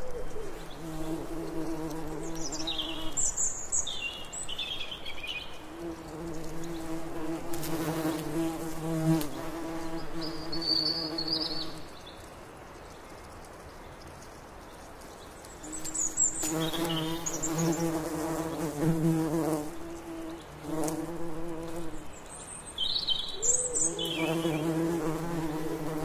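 A bee buzzing close by in bouts of a few seconds, a steady low hum that stops and starts again several times and falls away for a few seconds about halfway. Short high bird chirps come in clusters between the buzzing.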